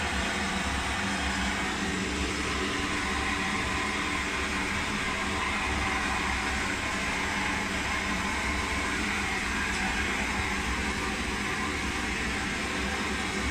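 Jumbo BK1 one-litre pressurised liquid-fuel blowtorch burning at full pressure, a steady, even hiss of flame. The torch is fully warmed up, its burner glowing red and throwing a flame about a hand-span long.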